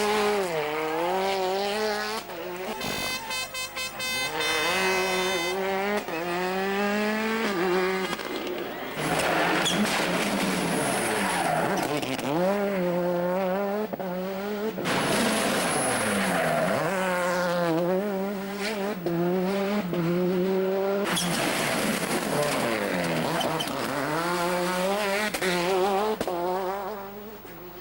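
Turbocharged four-cylinder World Rally Car engines revving hard on a rally stage, pitch repeatedly climbing and falling as the cars go up and down through the gears. It comes as several short passes one after another.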